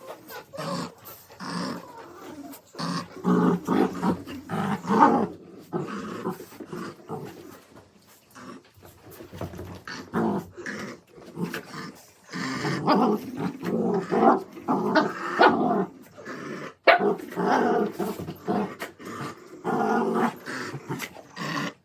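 Dogs growling in on-and-off bouts while tugging and chewing on a plush dragon toy: play growls during tug-of-war.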